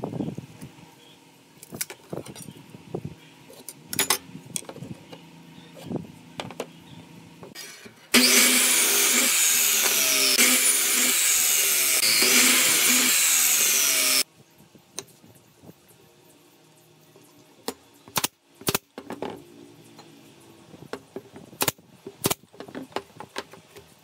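Electric miter saw cutting through a wooden board for about six seconds in the middle, starting and stopping abruptly. Before and after it come scattered light knocks and sharp clicks from handling the wood on the bench.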